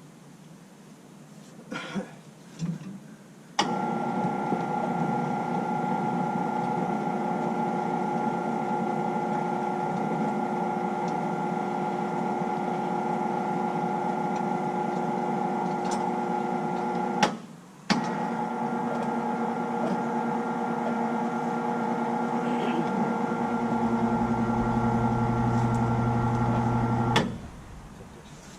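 Small electric winch motor running with a steady whine, in two long runs with a short stop between them, a few clicks just before it starts. A lower hum joins in over the last few seconds before it cuts off.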